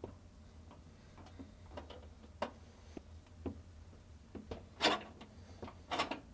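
Scattered light clicks and metallic taps of pliers gripping and bending the thin sheet-metal lip of a refrigerator freezer's drip tray, the loudest couple of clicks coming near the end.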